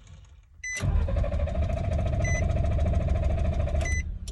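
2007 Nissan Pathfinder's starter cranking the engine for about three seconds without it catching, stopping abruptly, with a chime beeping three times. The engine cranks but won't fire because the immobilizer has locked it out, which the mechanic puts down to a BCM damaged by low voltage.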